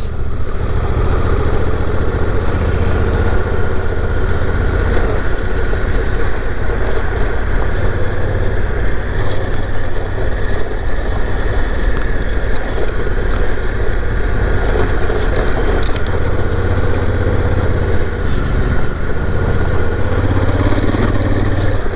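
Adventure motorcycle engine running steadily at riding speed, heard from the rider's seat over wind noise and tyres on a gravel road.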